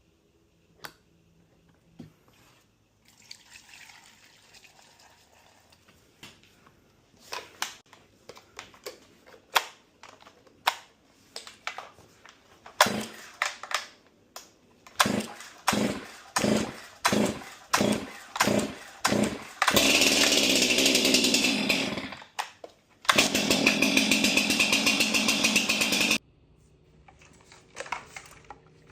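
Stihl MS 300 C two-stroke chainsaw being pull-started: a run of quick starter-cord pulls, about one to two a second. It then catches and runs loud for about two seconds, dies, and runs again for about three seconds before shutting off.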